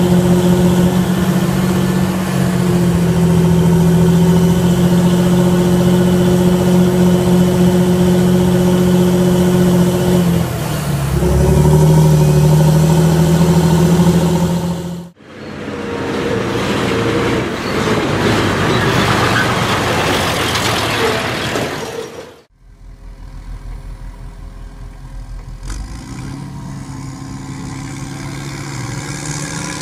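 Sonalika tractor's diesel engine running steadily, its note shifting about ten seconds in. About fifteen seconds in the sound cuts abruptly to a louder, even rushing noise for some seven seconds, then cuts again to a quieter steady engine hum.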